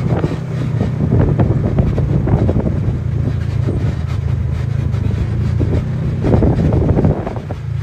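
Side-by-side UTV engine running steadily while driving on a dirt trail, with wind on the microphone and many short rattles and knocks, loudest for a moment about six seconds in.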